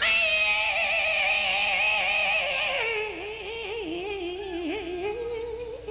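A female blues-rock singer holding one long, wavering sung note that drops lower about halfway through, in a live performance.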